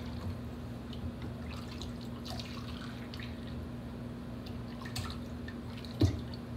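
Homemade chicken broth poured from a plastic measuring cup into a plastic tub, then ladled and dripping into the cup, with small clicks of the ladle and a sharper knock about six seconds in. A steady low hum runs underneath.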